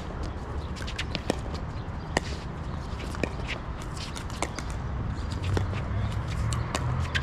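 Pickleball play: sharp, irregular pops of paddles hitting the plastic ball and the ball bouncing on the court, several a second, over a low steady rumble.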